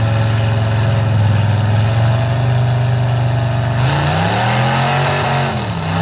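Pickup truck engines running hard under load in a truck tug of war, holding a steady pitch. About four seconds in, the revs surge up and fall back twice as the trucks' wheels spin in the dirt.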